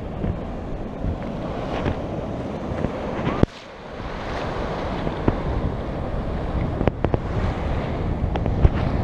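Shallow sea waves washing in and running up over wet sand at the surf line, with wind buffeting the action camera's microphone and scattered sharp knocks. The sound drops away suddenly about a third of the way in, then swells back.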